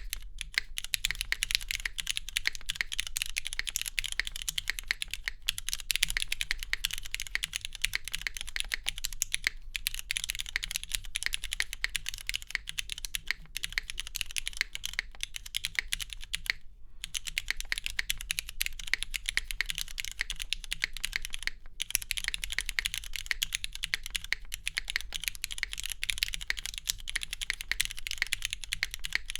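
Continuous fast typing on a custom Beloved Kohaku mechanical keyboard: lubed, spring-swapped Cherry MX1A Black linear switches in an aluminium plate with GMK keycaps, giving a steady stream of key clacks with a few brief pauses.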